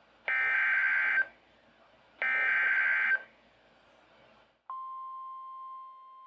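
Weather radio relaying a NOAA Weather Radio alert: the last two of three buzzy SAME digital data bursts, each just under a second long, marking the start of a new warning. About a second and a half after the last burst, the steady single-pitch attention tone begins.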